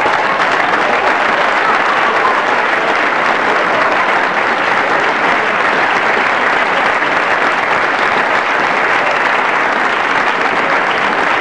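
Audience applauding steadily, a dense, even clapping right after the song ends.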